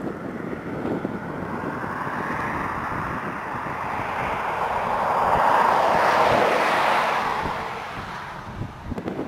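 A vehicle passing close by: its tyre and road noise builds, peaks about six seconds in, then fades. Wind buffets the microphone underneath.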